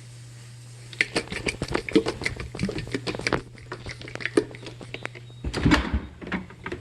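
Rapid, irregular clattering and knocking of objects being handled, with a louder cluster of knocks near the end, over a steady low hum.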